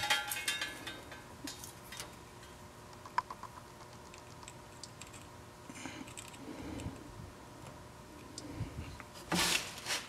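Light clicks and rattles of multimeter test leads and metal alligator clips being handled and clipped onto a water heater's gas valve, with a cluster of clicks at the start, scattered single clicks after, and a short rustle near the end.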